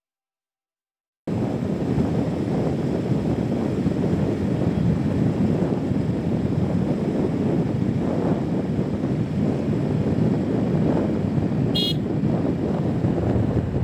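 Steady wind and road noise on the microphone of a vehicle moving along a highway, starting suddenly about a second in, with one short horn beep near the end.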